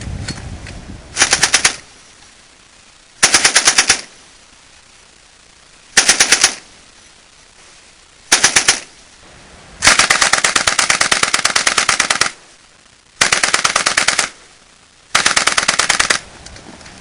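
Automatic gunfire in seven bursts of rapid shots, the longest lasting about two and a half seconds midway through, with short pauses between bursts.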